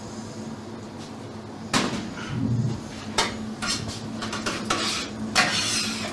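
Kitchen utensils clattering against dishes and a pan: several sharp clinks, the loudest near the end, over a steady low hum.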